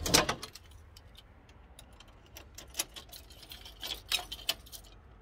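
A door being locked with a key: a sharp knock as the door shuts, then scattered metallic clicks of the key turning in the lock and the key bunch jingling.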